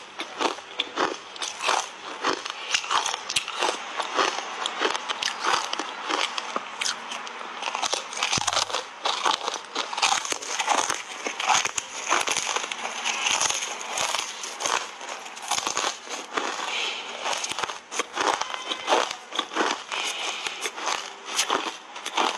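Hard cola ice bars thickly coated in matcha powder being bitten and crunched between the teeth: many sharp cracks and crackles in quick succession.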